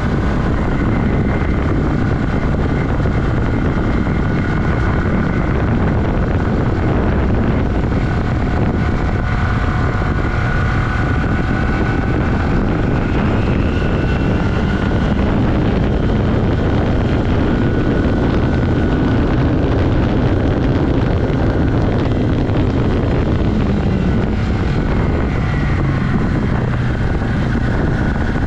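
1982 Yamaha XS400 Maxim's air-cooled parallel-twin engine running steadily under way, mixed with heavy wind rush on the microphone.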